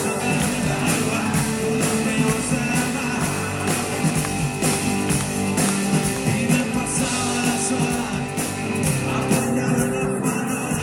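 Rock band playing live, with drums, guitar and singing.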